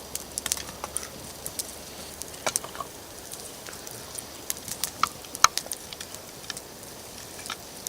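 Wood campfire crackling, with irregular sharp pops and snaps, one louder snap about five and a half seconds in.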